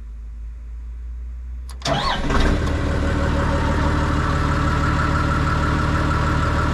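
Bulldozer's diesel engine cold-started: a low rumble of cranking, then the engine catches about two seconds in and settles into a steady idle to warm up.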